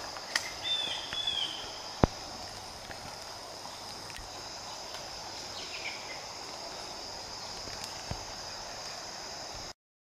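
A steady high-pitched chorus of late-summer insects such as crickets or katydids, over a faint rush of river water. A bird gives short chirping calls about a second in and again around six seconds, and a few sharp clicks sound, the loudest about two seconds in. All sound cuts off just before the end.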